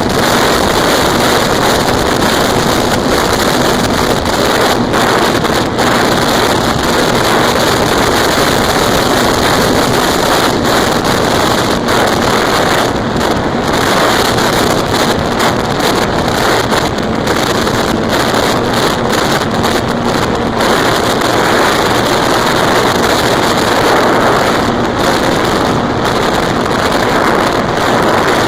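Wind rushing over the onboard camera's microphone of an E-flite Apprentice RC plane in flight, with the faint steady hum of its electric motor and propeller underneath.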